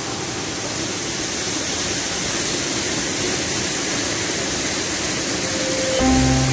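Steady rush of a rain-swollen waterfall and its muddy stream pouring through a rocky gorge. Music with sustained notes starts near the end.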